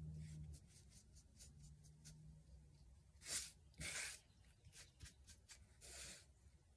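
Faint scratching of a paintbrush on a canvas panel, then the panel being slid and turned across a cardboard work board: two louder swishes about three and four seconds in, and a softer one near six seconds.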